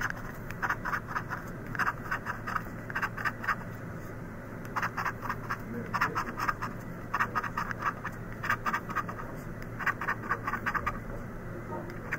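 Scratch-off lottery ticket being scratched, its coating scraped away in runs of quick short strokes with brief pauses between the runs.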